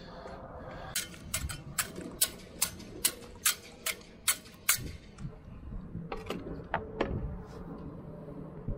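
A run of about ten sharp, evenly spaced clicks, roughly two and a half a second, followed by a few scattered clicks.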